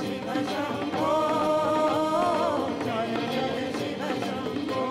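Devotional song: a singer holding long, bending notes over instrumental accompaniment, strongest about a second in.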